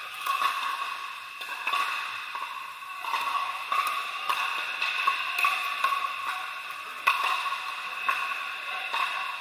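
Pickleball paddles striking plastic balls: irregular sharp pocks from rallies on several courts, echoing in a large indoor hall, the loudest hit about seven seconds in.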